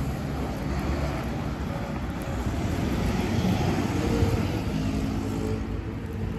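Steady street traffic noise, swelling a little about four seconds in.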